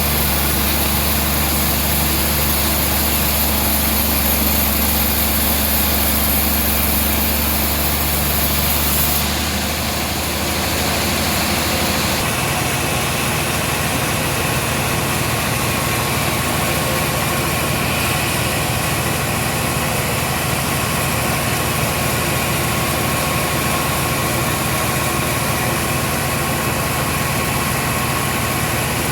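Heavy engine-driven machinery running steadily, its sound shifting in character about nine to twelve seconds in.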